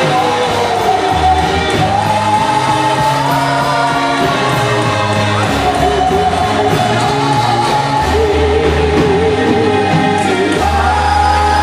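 Music with a group of voices singing a held melody over a low bass line that moves from note to note.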